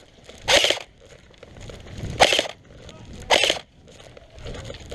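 Three short bursts of full-auto fire from an airsoft light-machine-gun replica, each about a third of a second long.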